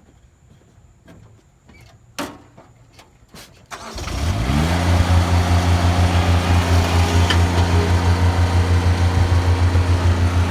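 A few clicks and a sharp knock, then about four seconds in an engine starts, its speed rising quickly before it settles into a steady idle with an even pulsing beat.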